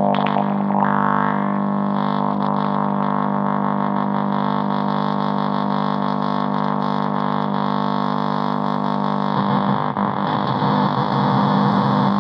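Buzzy electronic drone from a К176ЛА7 (CD4011-type) CMOS NAND-gate oscillator, run through distortion-like software effects. It holds a steady pitch with many overtones, then turns rough and wavering a little over nine seconds in.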